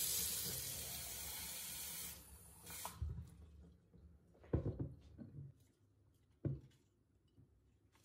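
Kitchen tap turned on suddenly and running into the sink for about two seconds, then fading off. A few short knocks follow as the glass jars are handled.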